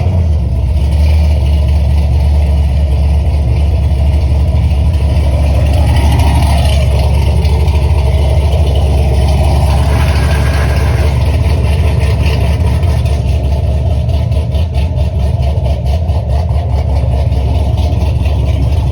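Chevy car engine idling steadily just after being started, warming up to operating temperature.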